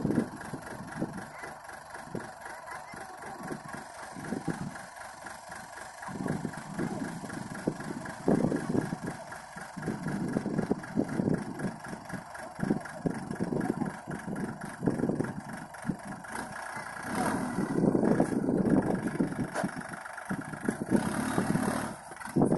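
Swaraj 744 XT tractor's three-cylinder diesel engine running steadily while the hydraulic tipper raises the loaded trolley bed to dump soil. It grows louder for a couple of seconds about three-quarters of the way in.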